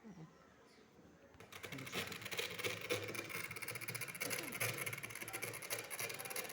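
Small electric motors of a model tractor start about a second and a half in and run steadily, making a whirring noise full of fast fine clicking.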